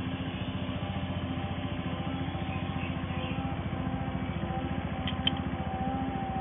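A machine running steadily in the background, a low drone with a fast even pulse. About five seconds in there are a few light metallic clicks as a spanner is fitted to the pedal spindle.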